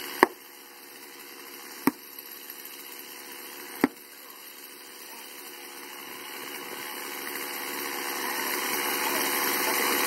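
Three sharp sledgehammer blows, about two seconds apart, driving a felling wedge into the back cut of a large tree. Under them a small engine runs steadily and grows louder through the second half.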